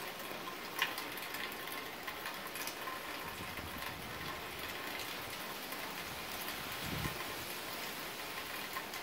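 Rain falling steadily, an even hiss, with one sharp tick about a second in.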